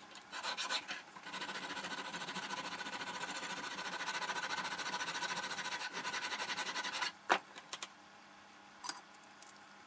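A hand file rasping across a small metal gib key clamped in a vise, in quick, even strokes with a faint metallic ring, as the key is taken down to size. The filing stops about seven seconds in, followed by a sharp clack and a few light clicks as the tool is set down.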